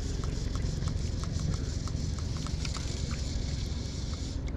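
Wind buffeting the microphone, a steady low rumble with a hiss above it that drops away near the end, and a few faint short ticks now and then.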